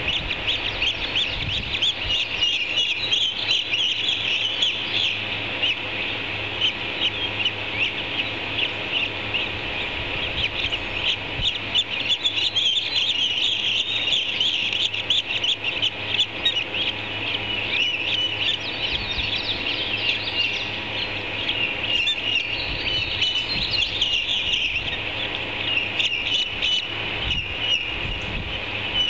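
Ospreys calling at the nest: a steady stream of high, sharp chirps, many each second, over a faint low hum.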